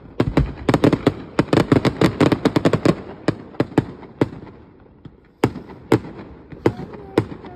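Fireworks going off: a fast run of sharp bangs and crackles for about three seconds, thinning to a short lull, then four single loud bangs about half a second apart.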